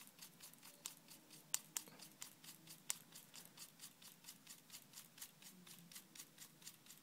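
Near silence with faint, even ticking, about six ticks a second, and a few louder small clicks a second or two in, as fingers handle the plastic sled gear of a CD transport.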